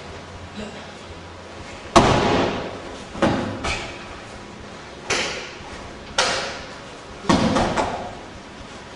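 Bodies slamming onto a padded training mat as partners are thrown in throwing practice: five heavy impacts over about five seconds, each dying away quickly.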